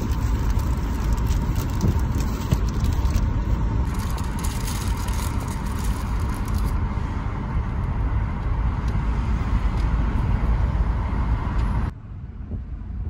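Plastic bag and cellophane wrapper crinkling as a lollipop is unwrapped, over a steady low rumble of a car's interior. The rumble drops sharply near the end.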